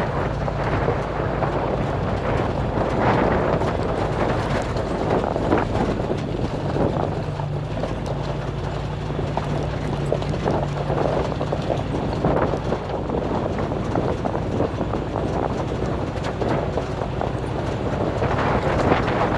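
Chevy Avalanche Z71 pickup's engine running at a steady low hum while the truck crawls over rough ground, with a continual irregular clatter of knocks and rattles from the truck bouncing over the terrain.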